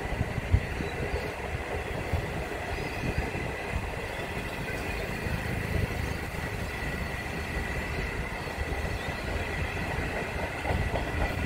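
Indian Pacific stainless-steel passenger carriages rolling past at speed: a steady rumble of wheels on rail with a thin, high, steady whine above it and a single sharp knock about half a second in.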